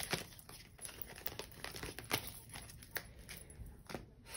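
Tarot cards being handled on a tabletop: soft rustling with a few light clicks and taps as cards are picked up and set down.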